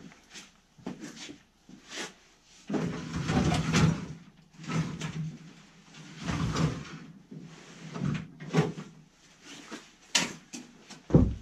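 A Yamaha Bravo snowmobile being dragged and shifted about on wooden barn floorboards, with scraping, knocks and footsteps on the boards. A heavy thump comes near the end.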